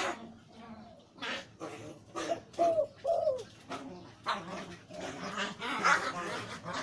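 Male zebra dove cooing: a run of short, arched coo notes, followed about four seconds in by busier, noisier sound.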